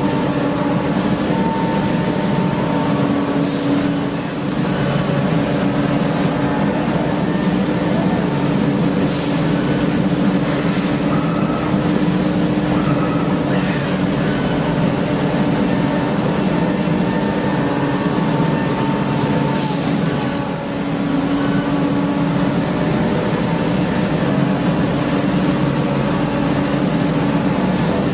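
Steady drone of factory machinery, a held low hum over a constant whirring haze, with a few faint clicks.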